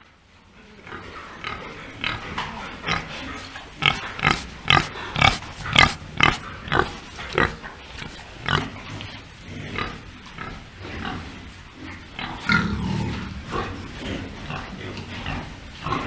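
Domestic pigs grunting in a string of short grunts, about two a second at the busiest, loudest and densest about four to six seconds in.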